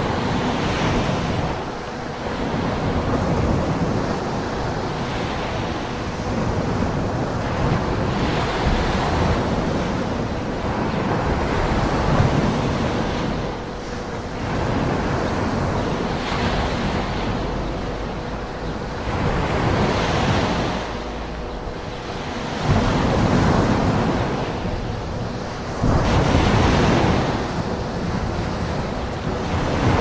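Ocean surf: waves breaking and washing in as a continuous rushing noise that swells and falls back every three to four seconds.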